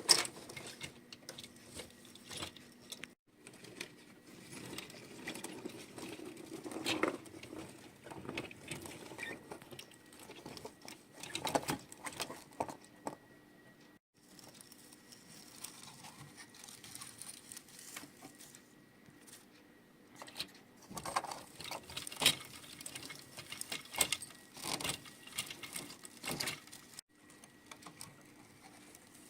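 Small die-cast toy models being handled and moved about: irregular light clicks, taps and rattles of hard plastic and metal parts, with a sharper knock now and then.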